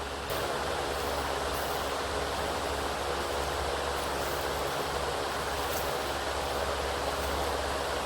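Electric fan blowing air across the microphone: a steady rush of wind noise over a constant low motor hum. It cuts off suddenly near the end.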